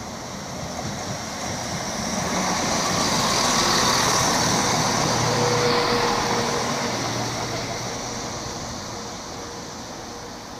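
Class 170 Turbostar diesel multiple unit running through the station without stopping. Its engine and wheel noise builds to a peak about four seconds in, then fades as it draws away.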